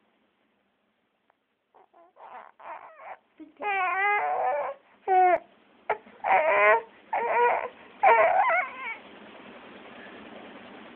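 A baby fussing and crying: faint short whimpers about two seconds in, then louder wavering cries that stop around nine seconds in.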